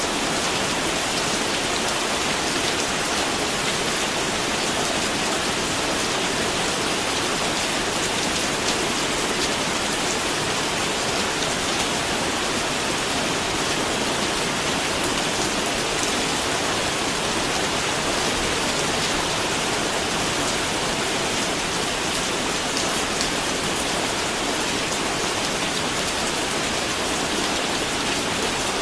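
Steady, heavy rain falling, an even hiss with many small drop ticks and no thunder.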